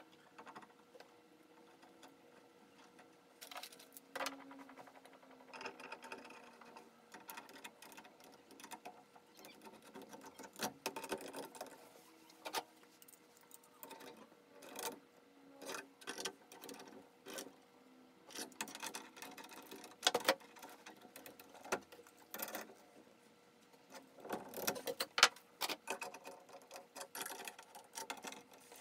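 Socket ratchet clicking in short runs, with scattered metallic clicks and knocks, as a faucet stem is tightened into a tub valve.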